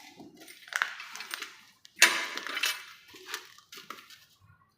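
Metal hardware clattering and clinking, with one sharp metallic clank about two seconds in that rings briefly.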